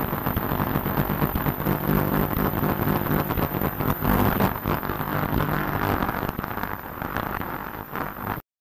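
Tumbler screening machine running with corn starch moving across its screen deck: a steady low motor hum under a dense, gritty rustle. The sound cuts off abruptly just before the end.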